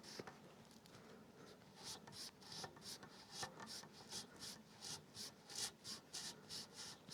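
Knife cutting through a rubber coolant hose to shorten it: faint, quick scraping strokes, about two to three a second, starting about two seconds in.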